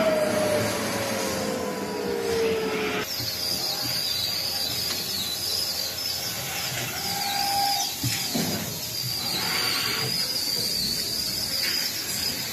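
Machinery of an automatic mattress-protector quilting and sewing line running, with a motor tone sliding down in pitch over the first three seconds. The sound then changes abruptly to a steadier mechanical din with a thin high whine and a brief mid-pitched tone partway through.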